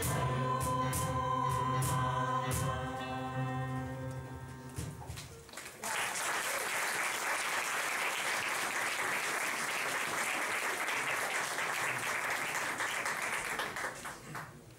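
Mixed choir ending a song on a long held chord, with a few sharp cajón beats near the start; the chord dies away about five seconds in. Audience applause follows for about eight seconds and fades out near the end.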